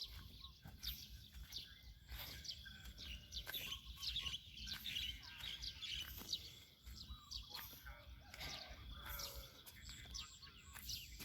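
Faint chirping of small birds: many short, high calls scattered throughout.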